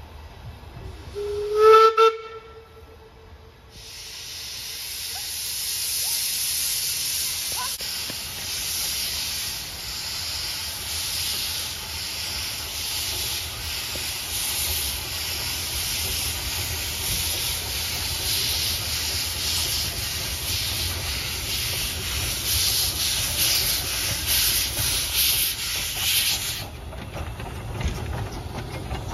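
Small steam locomotive sounds one short whistle blast, then hisses loudly for over twenty seconds as it moves off, steam blowing from around its cylinders. The hiss stops abruptly near the end, leaving the low rumble of the train rolling by.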